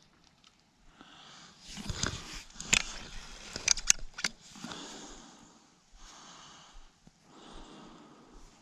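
Rustling handling noise, with a few sharp clicks and knocks between about two and four and a half seconds in.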